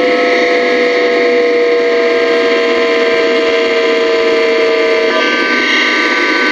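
Bombardier Talent 2's IGBT VVVF traction inverter whining in synchronous pulse modulation over a steady hiss. Its tones fall slowly as the motors slow. About five seconds in, the pitch steps abruptly to a new set of higher tones as the inverter changes pulse mode.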